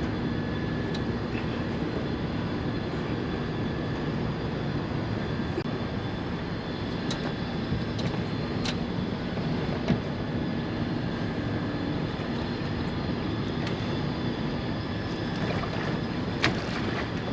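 A steady low engine-like drone that holds even throughout, with a few faint clicks.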